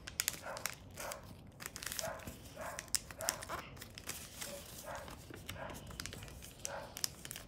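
Origami paper crinkling and rustling as it is creased and collapsed by hand, in many short crackles. Under it are soft puffs repeating about twice a second.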